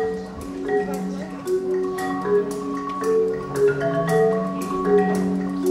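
Recorded music: mallet-percussion melody over long held notes, with a steady beat of percussion strikes roughly every two-thirds of a second.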